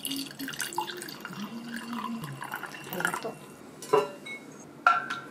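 Red wine being poured into a wine glass, splashing and trickling. Two sharp knocks come near the end, the second ringing briefly.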